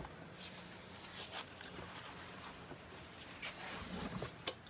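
Quiet room tone with a low steady hum, faint rustling and a few soft knocks.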